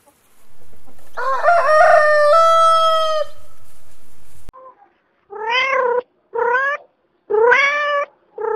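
A rooster crows once, a long drawn-out crow starting about a second in. From about five seconds in, a kitten meows in short, repeated calls.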